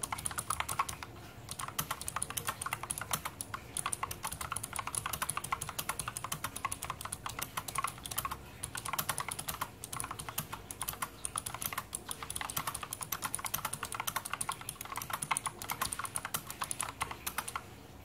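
Fast two-handed typing on a Fuhlen SM680R mechanical keyboard fitted with thick-walled crystal keycaps: a dense, continuous run of key clicks. The typing sounds fairly soft, which the typist puts down to the very thick keycap plastic.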